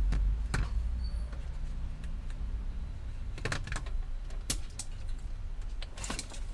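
A few sharp clicks and knocks at irregular intervals, over a low steady rumble.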